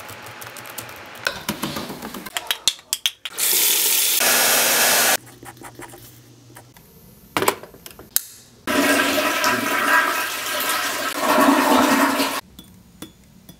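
A quick run of separate household sounds: laptop keys clicking as someone types, a loud rushing noise for about two seconds, a pen scratching on paper with a couple of sharp clicks, then a toilet flushing for about four seconds, the loudest sound, stopping abruptly near the end.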